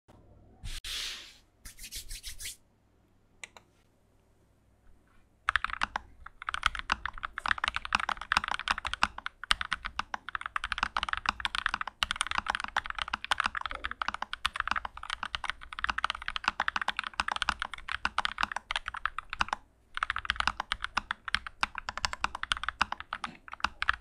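Fast typing on a modded KEMOVE K68 mechanical keyboard fitted with Feker Matcha switches and Lumia springs, taped twice and with modded stabilizers: a dense, steady stream of key clacks that starts about five seconds in and pauses briefly near the end. It is preceded by two short hissing noises in the first couple of seconds.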